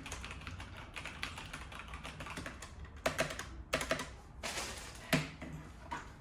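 Logitech G413 SE mechanical keyboard with tactile switches being handled, its keys clicking in a quick string of small clacks, with a few louder rustling bursts between about three and five seconds in.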